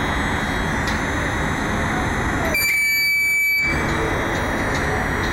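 Tower crane hydraulic climbing unit running steadily as the telescoping ram pushes the crane up the mast, a rushing noise with a thin steady whine above it. About two and a half seconds in, the rush drops away for roughly a second while the whine carries on.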